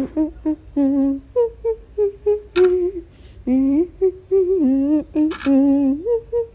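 A wordless hummed melody of short notes that slide up and down between them, with a couple of sharp clicks.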